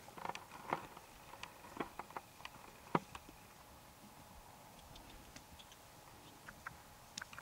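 Faint, irregular hoofbeats of a young horse cantering on grass, a scatter of soft knocks that is loudest in the first three seconds and thins out after.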